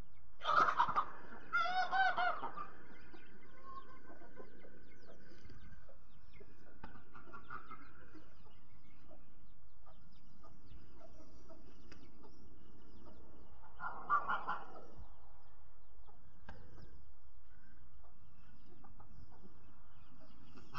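Farmyard poultry calling: a cluster of short clucks and honks about a second or two in, and another brief call around fourteen seconds, with a flock of chickens and geese pecking around.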